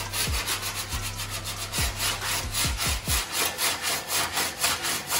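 Hand sanding of body filler on a car's quarter panel: a sanding block scraped back and forth in a steady rhythm of about two to three strokes a second.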